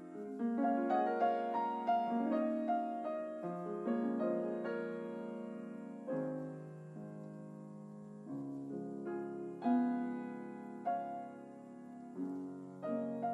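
Slow, gentle solo piano music: single notes and soft chords struck one after another, each left to ring and fade.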